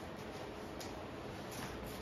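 Quiet room with a few faint, brief rustles and light taps from people moving about.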